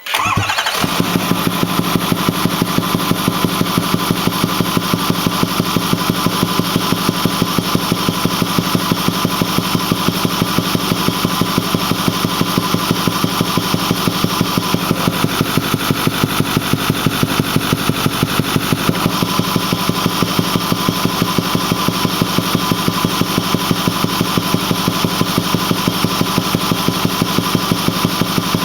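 Ford 6.4L Power Stroke V8 turbodiesel starting up and running steadily, with a regular, repeating thumping from the intake. The owner can't say what causes the thump; the engine otherwise runs smooth and makes full boost.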